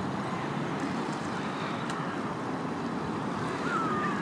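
Sea surf washing against the breakwater rocks as a steady wash, with wind on the microphone. Two faint, short, falling high tones sound near the end.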